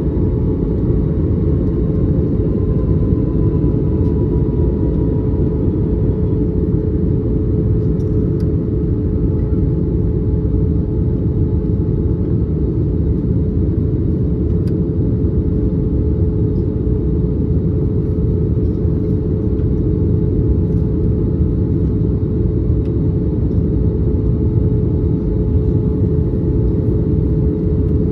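Steady cabin noise heard from a seat over the wing of an Airbus A321 in flight on descent: the rush of air along the fuselage and the drone of its CFM56 engines, with a constant steady hum. A faint tone slides slowly down during the first few seconds.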